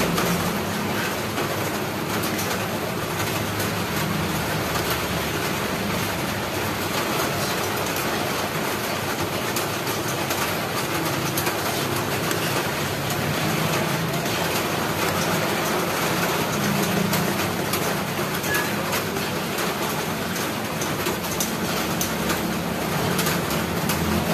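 A metal spoon stirring a thick, bubbling kalamay mixture of glutinous rice in a wok, with scattered scrapes and clicks over a steady rushing noise.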